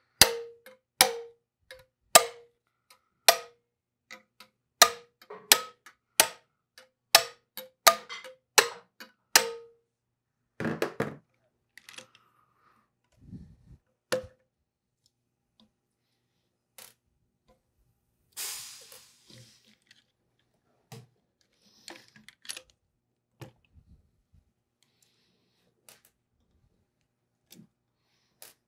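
Hammer striking a steel piston pin held on the valve spring retainers of a 6.7L Cummins cylinder head: a run of sharp metallic taps with a short ring, nearly two a second for the first nine seconds or so, each knocking the retainer to break the valve keepers loose from their taper. After that come scattered light clinks of loose valve parts.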